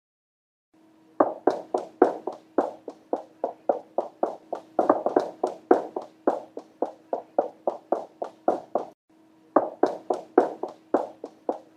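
Quick, regular tapping steps, about four a second, over a faint steady hum, stopping for a moment near the end and then starting again.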